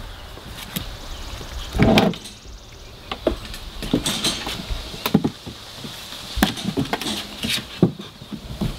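Puppies scrambling over a hollow plastic toddler slide and a concrete floor: scattered claw clicks, scrapes and knocks, with one louder thump about two seconds in.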